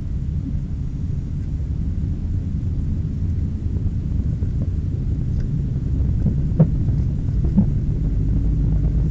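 Renault 9 car engine running steadily, a low rumble, with a few faint clicks in the second half. This engine has a strong knock, which the buyers judge serious.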